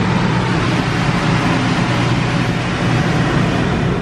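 Wesumat car wash's contouring top blower running, a steady, loud rush of air with a low hum, blasting rinse water off the car and heard from inside the cabin.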